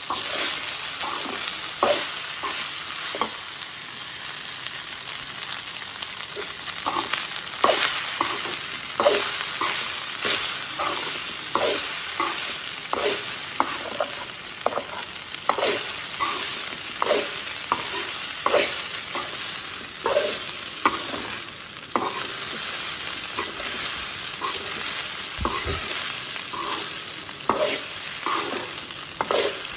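A metal spoon scrapes and clinks against a metal kadai as cooked rice is stirred and tossed through a hot tempering, over a steady frying sizzle. The strokes come irregularly, about one or two a second.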